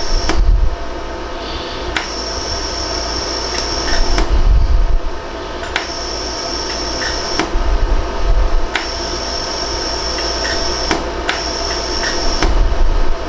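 Jewelry laser welder (100-joule LaserStar iWeld) firing single shots as 14K yellow gold filler wire is melted onto an earring post: sharp, irregularly spaced clicks, a high steady whine that switches on and off, and a few low thumps.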